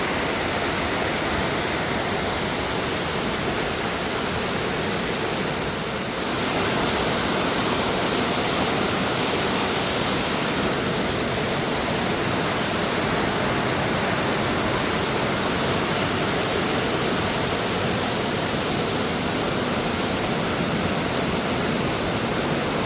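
Waterfall rushing: a steady, full roar of falling water that dips briefly about six seconds in.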